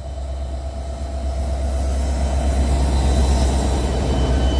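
Euro 4000 diesel-electric locomotive hauling a freight train of hopper wagons passes close by, its engine rumble growing louder about a second and a half in, with rising wheel and rail noise as the locomotive goes past and the wagons follow.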